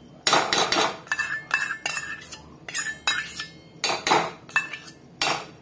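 Steel spoon tapping and scraping on a small steel bowl and against the metal kadhai, a quick string of sharp metallic clinks, some with a short ring, as chopped coriander is knocked off into the curry.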